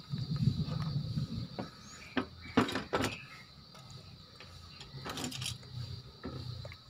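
Small plastic clicks and taps from hands handling a car key fob shell and a super glue bottle, a few short clicks around two to three seconds in and again about five seconds in, over a low rumble in the first second and a half.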